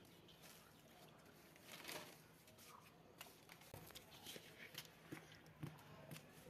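Faint soft squelches and small ticks of wet hands pressing and smoothing a mud-and-straw clay mix onto a bucket stove's walls.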